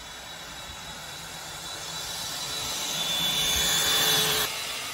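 Homemade scooter driven by a cordless power-tool motor: a motor whine with the rolling of its wheels on asphalt, growing louder as it comes up and passes close by, then dropping off sharply about four and a half seconds in.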